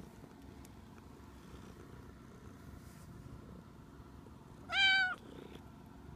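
Domestic cat meowing once, a short call of about half a second, near the end.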